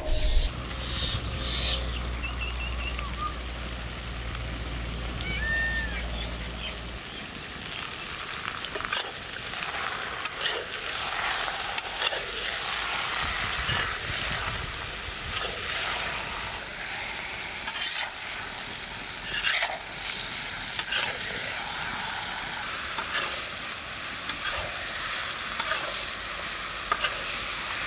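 Marinated prawns sizzling as they fry on a large iron tawa, with a metal spatula scraping and turning them against the pan in repeated strokes from about nine seconds in.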